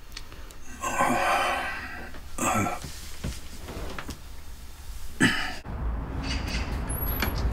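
An elderly man coughing and clearing his throat in three rough bouts, the longest and loudest about a second in. Near the end, a low steady hum with a few faint taps.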